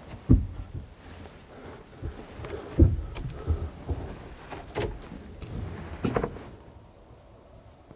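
Several scattered knocks and thumps, the loudest about three seconds in, from a hunter moving about and handling gear inside an enclosed wooden box blind. They stop a little after six seconds.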